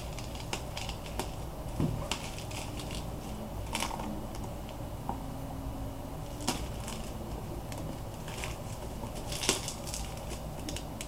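A package being opened by hand: irregular clicks, scrapes and crinkles of the box and packing material.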